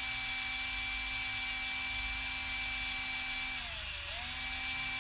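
Cordless drill running steadily, spinning a short piece of 1/4-inch copper brake line while a razor blade is held to its end to sharpen it. About three and a half seconds in, the motor slows with a falling whine, then spins back up.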